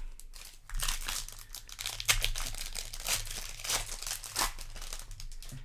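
Foil booster pack wrapper crinkling and crackling as it is handled and torn open, from about a second in until shortly before the end.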